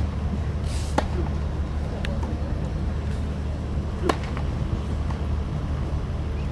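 Tennis balls struck with rackets: sharp pocks about a second in and two seconds in, and the loudest a little after four seconds in, over a steady low hum.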